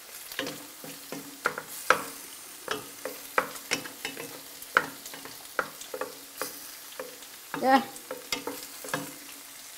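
Two wooden spatulas stirring tomatoes and mushrooms in a stainless steel pot, with irregular knocks and scrapes against the pot over a steady sizzle of frying.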